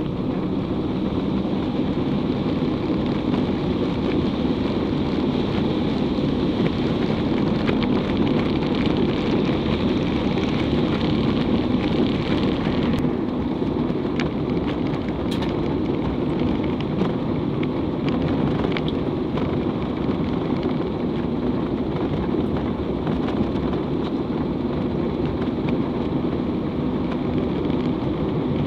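Steady road and engine noise heard from inside a vehicle's cab driving over a rough, unpaved dirt road, with a few sharp knocks and rattles from the bumpy surface.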